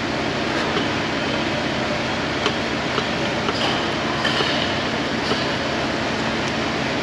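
Steady loud mechanical rumble with a few light metallic clicks and clinks from hands working at a truck diesel engine's alternator.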